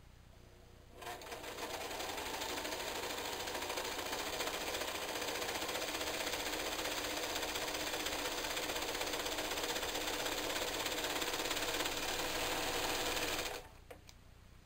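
Simplicity serger (overlocker) running steadily as it serges the cut edge of a terry towel to keep it from fraying. It starts about a second in and stops near the end, followed by a few small snips as the thread chain is cut with scissors.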